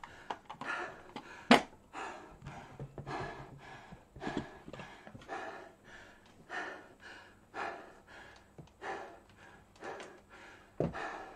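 A man panting heavily, a loud breath about once a second, winded from an intense workout. A sharp knock about one and a half seconds in and a dull thud near the end.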